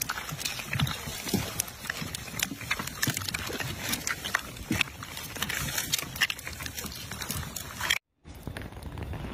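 A troop of macaques scrabbling over small plastic jelly cups: a dense, irregular run of plastic crackles and clicks, with the animals' short grunts mixed in. The sound breaks off for a moment near the end.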